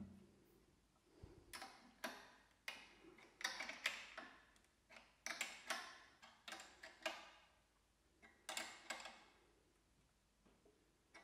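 Steel spanner clicking and clinking against the adjustment nut under the table of a JET JBOS-5 spindle sander as the nut is tightened: a quick series of sharp metallic clicks with short ringing, in small clusters, from about a second and a half in until near the end.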